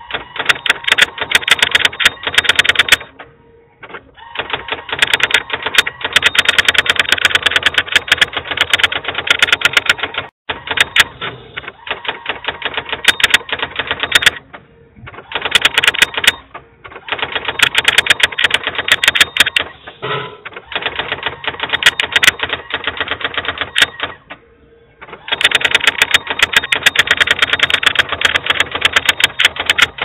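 Brother GX-6750 electronic typewriter typing: rapid clicking keystrokes in runs of several seconds, broken by short pauses.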